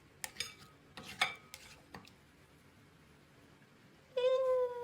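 Metal spoon clinking a few times against a bowl while stirring liquid starch into glue for slime. Near the end comes a drawn-out call, slightly falling in pitch and lasting about a second.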